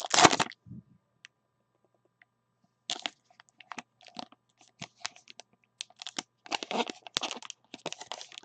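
Plastic wrapper of a trading card pack crinkling and tearing as it is opened, a run of short irregular crackles that starts about three seconds in.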